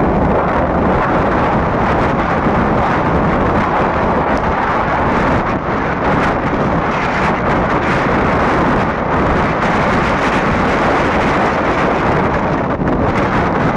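Steady rush of wind on the microphone of a phone riding along a road at speed, an even, unbroken noise with the vehicle's running sound beneath it.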